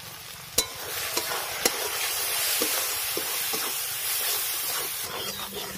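A metal spatula knocks and scrapes against a metal karai as salt and ground spices are stirred into a masala paste frying in mustard oil, and the masala sizzles. A few sharp knocks start about half a second in, then a steady sizzle with scraping follows.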